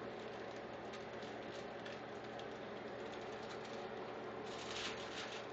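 Aluminum foil rustling and crinkling as a pork sausage slab is rolled up on it, over a steady background hum; the crinkle is loudest about four and a half seconds in.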